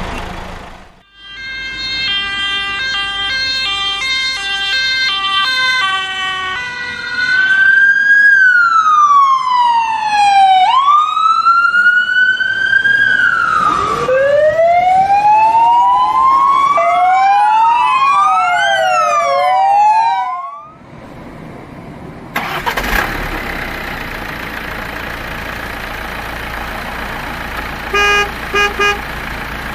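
Ambulance siren, first alternating between two tones, then switching to long rising-and-falling wails and faster overlapping sweeps; it cuts off about twenty seconds in. After a short gap a car runs with a steady noisy sound, and three short beeps come near the end.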